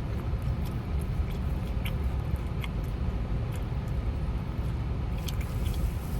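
Steady low outdoor rumble, like distant traffic, with a few faint clicks scattered through it.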